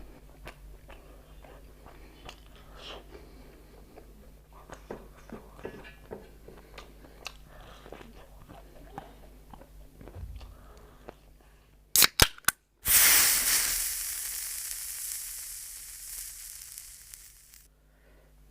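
Close-miked eating: soft crunching, chewing and mouth clicks. About twelve seconds in come a few sharp loud clicks, then a loud hiss that fades over about five seconds and cuts off.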